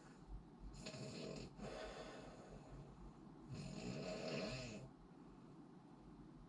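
A person snoring: two snores, the second coming about three seconds after the first and louder.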